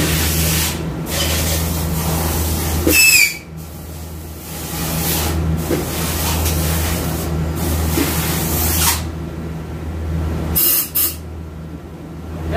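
About five short hissing bursts from a pressurised jet worked over a transmission case. The loudest, about three seconds in, has a whistling edge. A steady low hum runs underneath.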